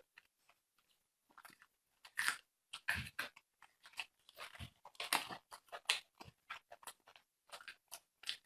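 Close-miked chewing and biting into fatty pork belly: irregular wet mouth clicks and bites, sparse for about the first two seconds and then coming thick and fast.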